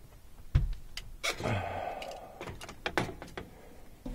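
Sheet-metal blower assembly of an air handler being handled: a heavy thump about half a second in, then a second or so of scraping and a run of sharp metal knocks and clicks.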